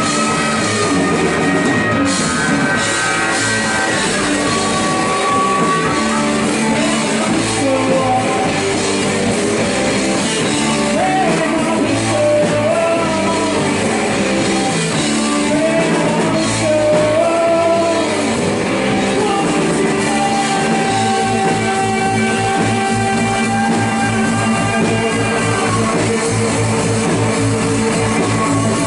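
Live rock band playing a song at a steady loud level: guitars over bass and drum kit.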